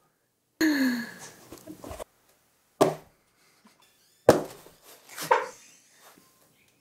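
Short snatches of a woman's excited wordless exclamations and laughter, the first a falling 'ooh'-like cry, each cut off abruptly into dead silence.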